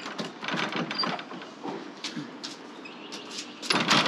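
A cafe's glass-panelled wooden front door being worked from inside: a series of clicks and knocks of the handle and latch, then the loudest clatter near the end as the door is pushed open.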